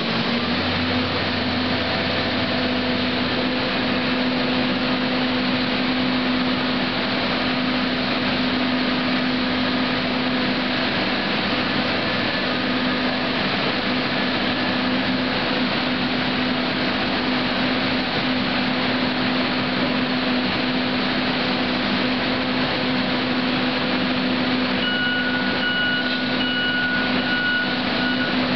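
John Deere excavator's diesel engine and hydraulics running steadily with a constant hum. Near the end a thin high whine comes in.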